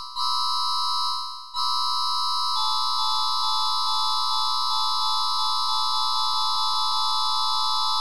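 Kazakhstan's emergency alert alarm tone: a steady electronic chord that sounds like someone playing an electric keyboard. It fades and restarts twice in the first two seconds, then holds, with faint clicks coming faster and faster through the middle.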